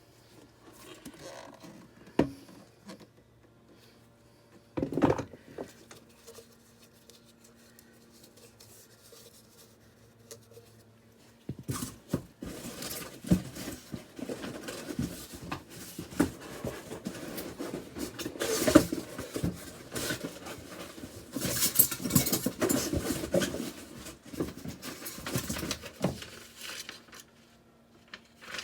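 Hands working on a furnace inducer motor assembly: a couple of single knocks, then from about halfway a long stretch of irregular clattering, scraping and rustling as parts are handled and fitted.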